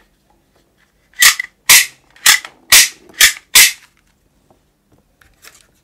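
Green plastic toy gun firing six sharp shots in quick succession, about two a second. A few faint plastic clicks follow near the end.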